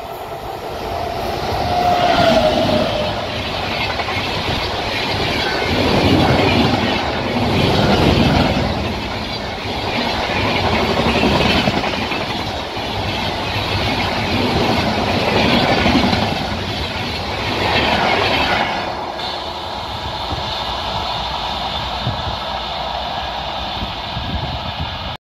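Passenger train of LHB coaches passing at speed on an electrified line: its rumble builds over the first two seconds, then the wheels clatter over the rail joints in repeated swells as the coaches go by, easing to a steadier, quieter rush after about 19 seconds.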